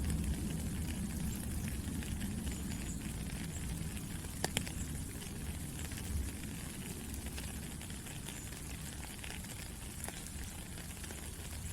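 Steady rain falling, a continuous hiss over a low rumble, with scattered ticks of drops striking and a couple of sharper ticks about four and a half seconds in.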